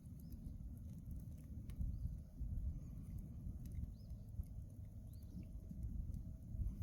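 Open fire crackling with scattered sharp pops over a steady low rumble. A few short, high chirps come and go.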